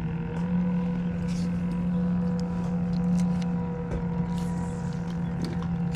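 A steady mechanical hum, a low drone with fainter higher tones held constant, with scattered light clicks over it.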